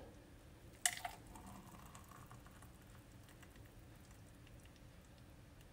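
A single sharp click about a second in, then a faint pouring sound as thick blended fruit juice runs from a glass blender jug into a drinking glass.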